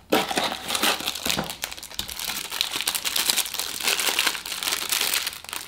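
Clear plastic wrapping crinkling and rustling as a small accessory is handled and unwrapped, a dense, continuous run of crackles.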